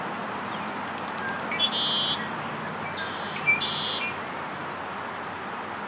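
Male red-winged blackbird singing twice, about two seconds apart, each song a short opening note followed by a trill, over a steady background hiss.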